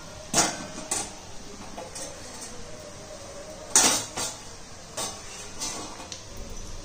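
Hot oil sizzling steadily in a kadai as chegodilu deep-fry, with about six sharp clinks and knocks of a metal ladle and spoon against the pan and a steel plate. The loudest knock comes a little before four seconds in.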